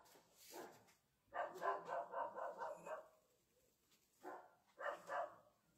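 A dog barking: a quick run of about six barks, then two more barks a second or so later.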